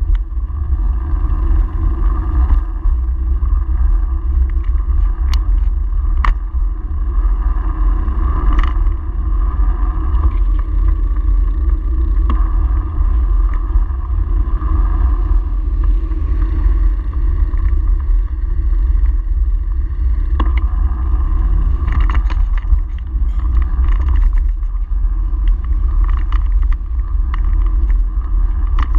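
Steady low rumble of wind and road noise on a handlebar-mounted camera's microphone while riding a bicycle along a town street, with a few short knocks.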